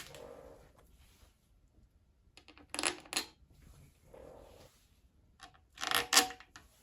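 Small metal screws clinking against metal as they are handled, with a couple of sharp clinks about three seconds in and a few more near the end, and soft handling noise between.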